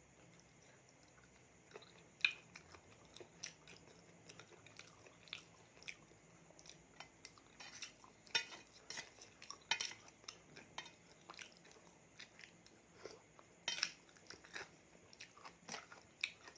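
Close-miked eating of a spicy raw seafood salad: chewing with scattered, irregular utensil clicks against a dish, a few of them sharper and louder.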